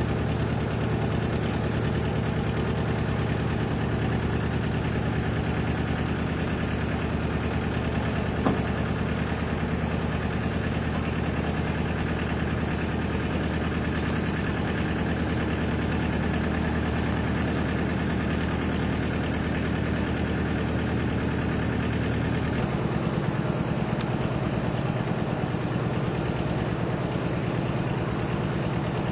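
Canal narrowboat's engine running steadily with an even, low pitched note. About three-quarters of the way through, its deepest notes drop away and the sound goes on a little thinner.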